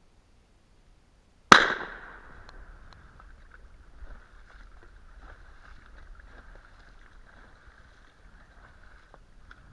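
A single shotgun shot about one and a half seconds in, loud and sharp, dying away quickly into a faint steady hiss.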